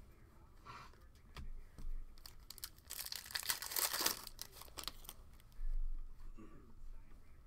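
A foil trading-card pack being torn open and crinkled by hand, the rustle loudest about three to four seconds in, with a few light handling taps before it and a dull bump near the end.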